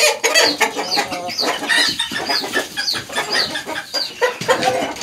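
Chickens clucking, with a run of short, high, falling calls about twice a second and scattered clicks.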